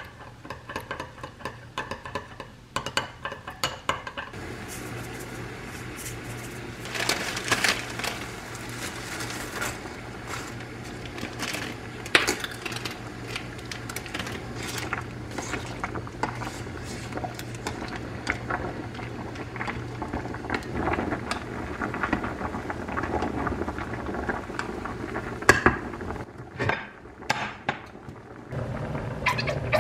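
A metal spoon clinking and scraping against a small glass bowl as a dressing is stirred, for the first few seconds. Then a pot of water is boiling, with scattered clinks and knocks over it as spaghetti is put in and worked into the pot.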